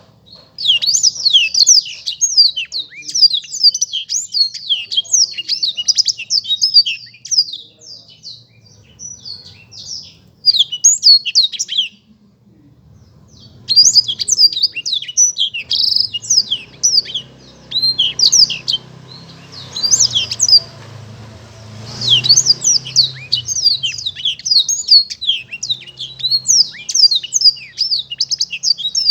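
Blackthroat (yellow-rumped seedeater) singing a fast, clear, high-pitched run of rapid chirps and trills in long phrases, with a break of about two seconds roughly twelve seconds in.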